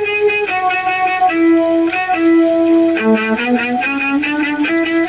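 Violin playing a slow melody of long held notes, climbing in a short run of quicker notes about three seconds in, over a quick repeating accompaniment of short plucked notes.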